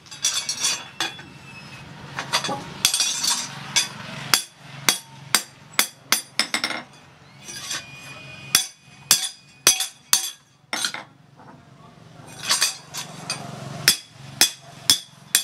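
Hand hammer striking a long steel knife blade held in tongs on an anvil: a run of irregular blows, roughly two a second, each with a brief metallic ring.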